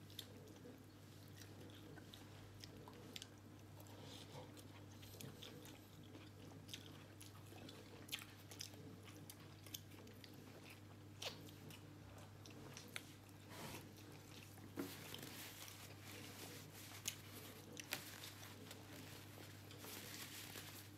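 Faint chewing and crunching of food close to the microphone, with scattered small clicks and ticks over a steady low hum.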